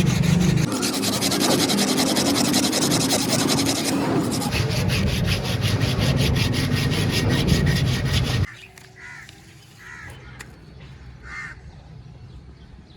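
Abrasive rubbing on the knife, as in sanding or sharpening, steady with a fast even pulsing, cutting off sharply about two-thirds of the way through.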